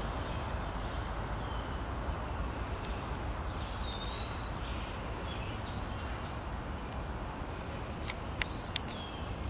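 Steady outdoor background noise with a low rumble, and birds calling: a whistled call that slides down in pitch about three and a half seconds in and another near the end, with a few sharp clicks just before the second.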